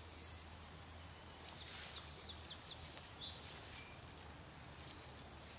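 Quiet streamside ambience: a steady faint hiss, with a few quick, faint bird chirps about two and a half to three seconds in.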